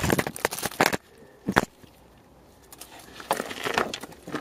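A quick run of sharp metallic clicks and knocks from spanner work on a car's track rod end and its freshly loosened locknut. One more sharp click about one and a half seconds in, then rustling handling noise near the end.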